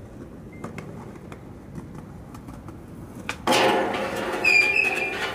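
Skateboard sliding down a wet metal stair handrail: after faint light clicks, a sudden loud grinding scrape starts about three and a half seconds in and carries on, with the rail ringing in a high tone partway through.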